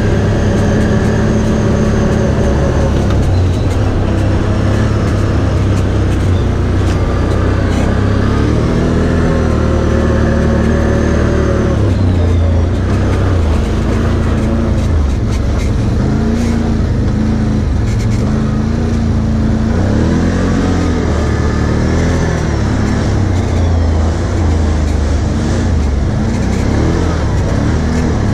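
Can-Am ATV's V-twin engine running while being ridden along a dirt track, heard close up from the handlebars. Its pitch repeatedly rises and falls as the throttle is opened and eased off.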